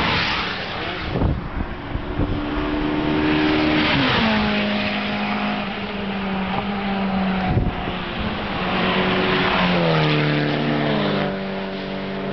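Track cars at speed on a race circuit's straight: one passes close at the start with a rush of engine and tyre noise, then engines are heard accelerating hard, the note stepping down in pitch at each upshift about four seconds in and again around nine to eleven seconds.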